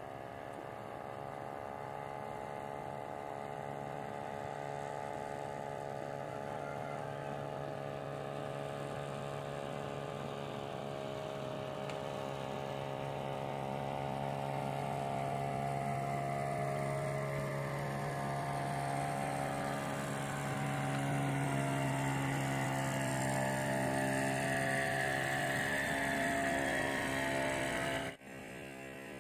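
Motorboat engine running steadily on the river with a low hum, growing a little louder, then cutting off abruptly about a second before the end.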